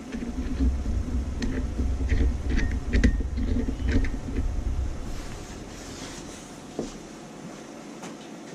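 Close handling noise as gloved hands work the plastic cap and fittings of an oil catch can: low rubbing and rustling right at the microphone, with several sharp clicks of plastic parts. It dies down about five seconds in, leaving a quiet background.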